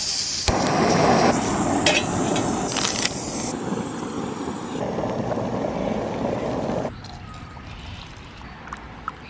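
Small canister camping stove on butane-propane gas: a hiss of gas, a sharp igniter click, then the burner running with a steady loud rush of flame that cuts off abruptly near the end.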